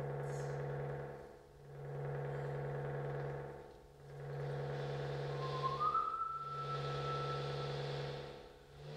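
Steady low electronic drone with several overtones, swelling and fading in a regular cycle about every two and a half seconds, from a small knob-controlled electronics box as its knobs are turned. A thin higher tone slides in, rising slightly, a little past halfway through.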